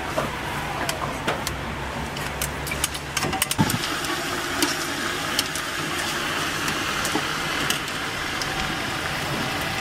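Metal utensils clinking against a steel pot. About three and a half seconds in, chicken pieces go into hot oil and sizzle steadily. A low steady hum runs under the first few seconds.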